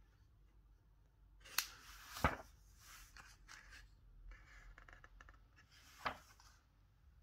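Pages of a large softcover book being turned by hand: soft paper rustling, with sharp page snaps about one and a half and two seconds in and another about six seconds in.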